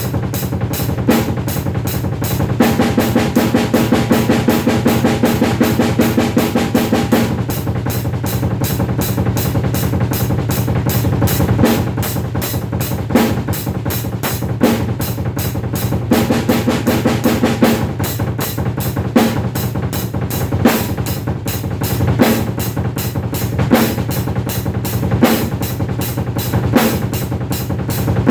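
Drum kit played with fast, even strokes on bass drum, snare and cymbals, with stronger accented hits about every second and a half.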